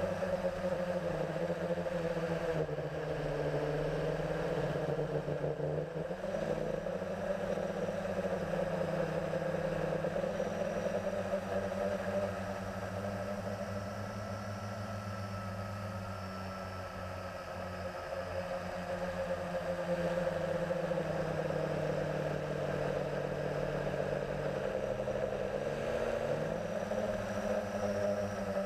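Blade 350 QX2 quadcopter's four brushless motors and propellers whirring in flight, heard from the GoPro it carries: several steady tones that slide up and down in pitch now and then as the throttle changes, a little quieter about halfway through.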